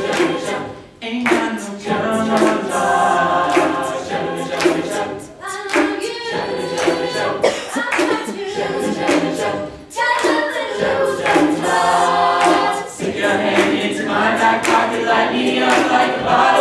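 Mixed-voice a cappella group singing live, a lead voice over the group's backing harmonies, with a steady percussive beat.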